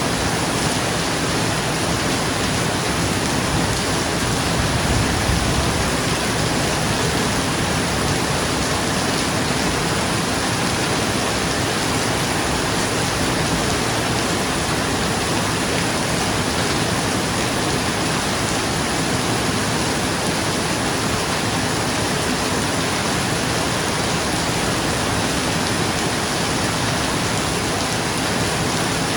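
Steady rain falling on a roof, an even, dense hiss without breaks.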